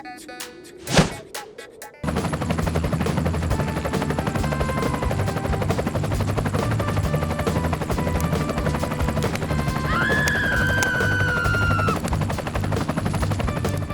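Rapid, continuous clattering over background music, after a single sharp thump about a second in. About ten seconds in, a whistle-like tone sounds for roughly two seconds, falling slightly in pitch.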